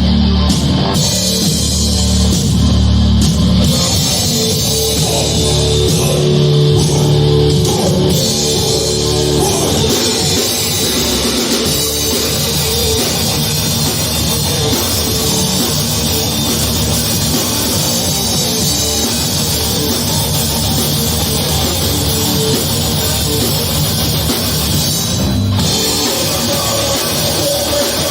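Heavy metal band playing live, with guitars and a drum kit going at full volume.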